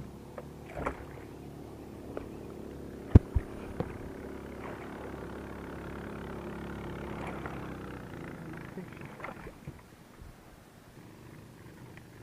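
A motor hums steadily, then fades out about eight seconds in. Two sharp knocks come about three seconds in, with a few lighter clicks around them.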